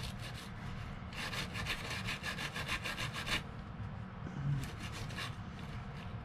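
Small stainless steel wire brush scrubbed rapidly back and forth over the rusty flat drag spring of a vintage Mitchell 300 spinning reel, taking off the heaviest rust deposits. The longest run of strokes falls in the middle, with a shorter run near the end.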